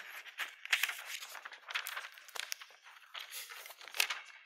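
Paper rustling and shuffling, a string of irregular crinkles and small taps.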